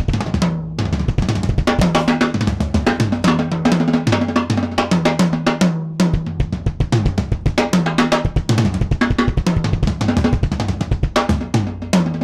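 Acoustic drum kit played in a sound check: fast strokes on snare and bass drum with fills that step down in pitch across the toms, pausing briefly twice.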